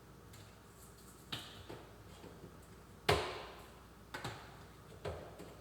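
A handful of separate knocks and clicks as kitchen items, such as seasoning containers, are handled and set down on a counter, the loudest about three seconds in.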